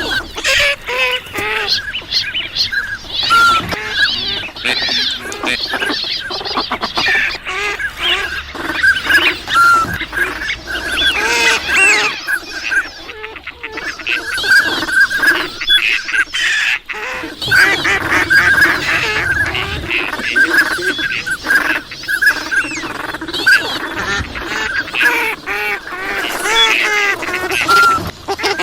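A dense, unbroken chorus of many ducks calling at once, including mallards. Low quacking runs beneath a thick layer of high whistles and chattering calls, easing briefly midway before filling in again.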